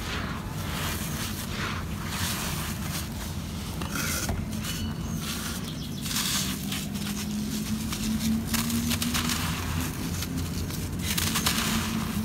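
Dry red dirt crumbling and pouring through bare hands: gritty trickling and crackling of falling soil that swells and fades every couple of seconds. A steady low hum runs underneath.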